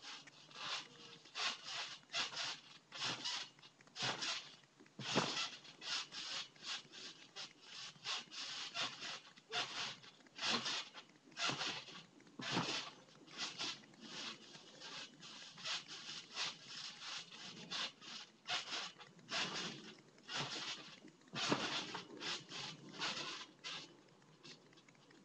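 Repeated short scraping noises, about one to two a second at an uneven pace.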